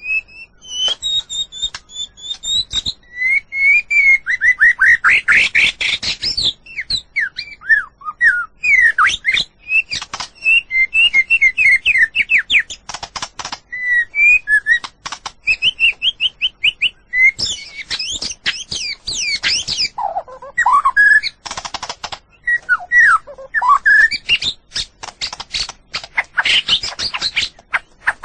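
White-rumped shama (murai batu) singing a long, varied song: clear whistled notes and glides, quick trills, and fast runs of harsh clicking notes.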